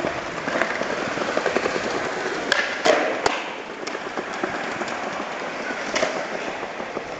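Broken skateboard's wheels rolling over a smooth hard floor, with a quick run of three sharp clacks of the deck hitting the floor about three seconds in and another clack near six seconds.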